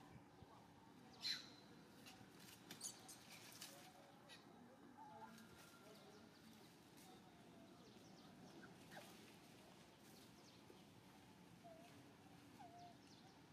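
Near silence with faint outdoor background, broken about a second in by one short, high-pitched animal chirp, followed by a few faint clicks and a couple of faint short calls near the end.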